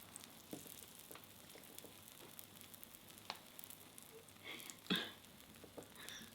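Takoyaki sizzling faintly in a hot takoyaki pan, with scattered light clicks and one sharper clack about five seconds in.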